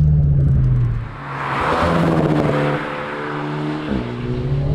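Alpine A110 Légende GT's turbocharged four-cylinder, with a downpipe, sport catalyst and stage 2 remap, running at steady revs. About a second in, a rush of noise swells and fades. The engine note then rises a little, dips briefly near the end, and the steady engine drone returns.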